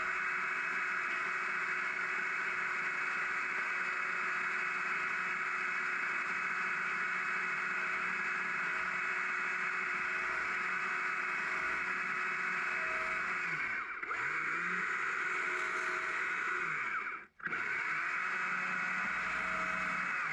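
Stihl chainsaw running at high revs while carving a small log. The revs fall and pick back up about two-thirds of the way through, and shortly after the sound breaks off for a moment before the saw runs steadily again.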